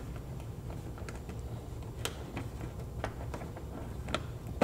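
Light, irregular clicks and taps of a hand unscrewing a small screw from a plastic wheel-well liner, over a low steady hum.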